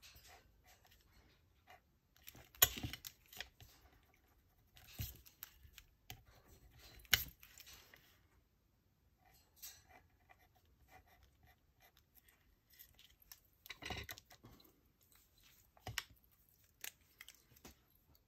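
Paper and craft tools being handled on a tabletop: scattered faint rustles and sharp clicks, with the loudest clicks about 3 and 7 seconds in and a longer rustle about 14 seconds in.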